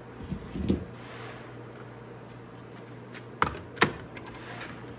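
Motorcycle roller chain clinking as it is carried and set down on a toolbox: a soft knock near the start, then two sharp metallic clinks about three and a half seconds in, with a few lighter clicks after.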